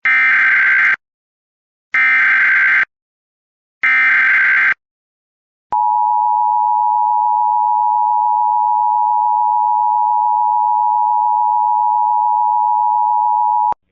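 Emergency Alert System activation header: three roughly one-second bursts of SAME digital data tones about two seconds apart, then the long, steady attention tone for about eight seconds, which cuts off sharply.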